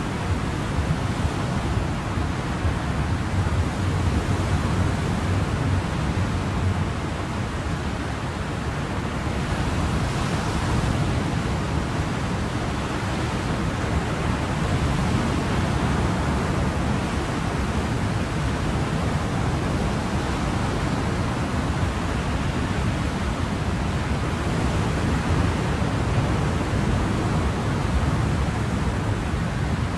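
Ocean surf: a steady wash of waves with slow, gentle swells in level.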